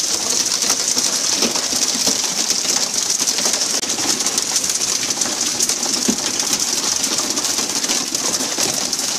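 Steady hiss of water jets from the fishing boat's spray pipes hitting the sea surface, like heavy rain, mixed with splashing where tuna are being hooked at the side.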